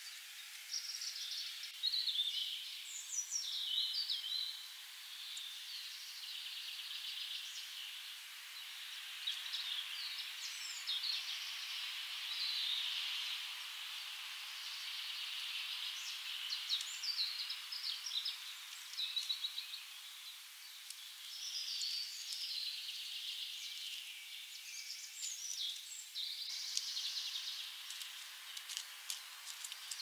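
Many songbirds singing at once, a dense run of overlapping high-pitched phrases, trills and chirps over a faint hiss, without a break.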